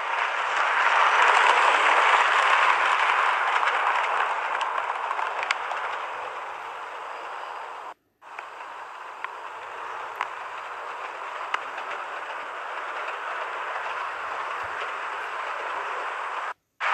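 Model electric locomotive and coaches running on model railway track: a steady rolling hiss with a few faint ticks. It is loudest in the first few seconds and then fades. It drops out for a moment about eight seconds in and comes back quieter.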